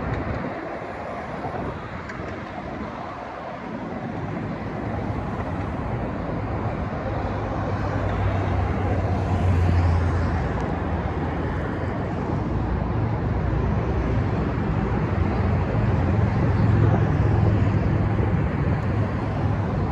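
City street traffic: cars driving past, with the low rumble of engines and tyres swelling as vehicles pass, loudest about halfway through and again near the end.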